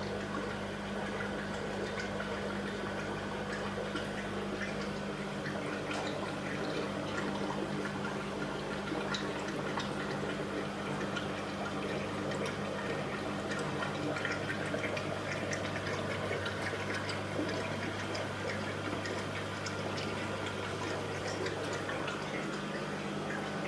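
Bubbling and trickling water from air-driven sponge filters in a row of aquariums: a steady patter of small bubble pops, under a steady low hum.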